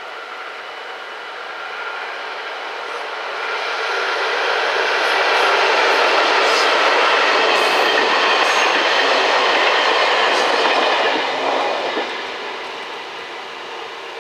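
Electric locomotive 1215 hauling passenger coaches past: the running noise of wheels on rail swells as the train nears, is loudest for several seconds with a few light clicks from the wheels, then fades as it moves away.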